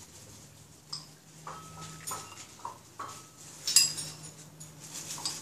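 Bowls, spoons and cups clinking and knocking on a tiled kitchen counter: about five sharp clinks with a brief ring, the loudest about three-quarters of the way through. A faint low hum runs underneath.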